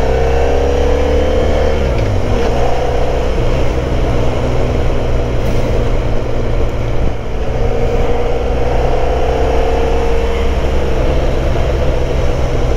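Motorcycle engine running under way with wind and road noise. The engine note falls away about two seconds in and picks up again later.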